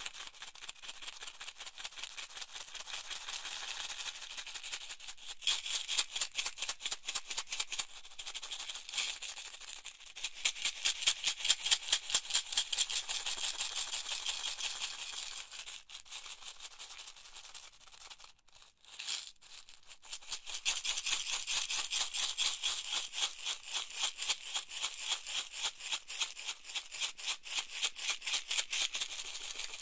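Box of office pins being shaken, the pins rattling inside in quick rhythmic shakes of about three a second, a dense clatter of tiny clicks. There is a short break about eighteen seconds in, then the shaking resumes.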